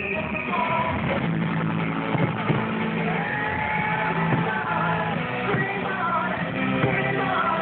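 Fireworks-show soundtrack music with singing, played over outdoor loudspeakers, with a few sharp firework bangs, the loudest about two and a half seconds in.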